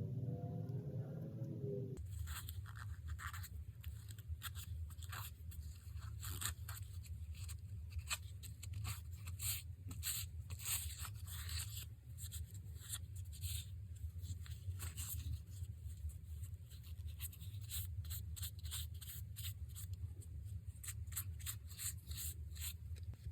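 Quick, irregular scraping strokes of nail work on a fingernail, starting about two seconds in, over the steady low hum of a nail dust collector's fan.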